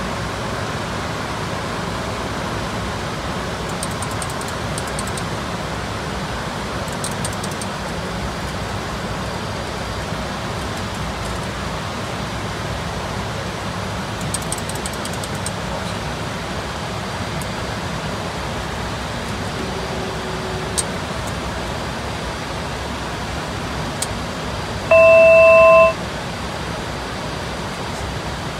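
Steady rushing noise inside the cockpit of a Dornier 328Jet jet airliner in flight. Near the end, a loud electronic cockpit alert tone sounds for about a second, with three pitches held together.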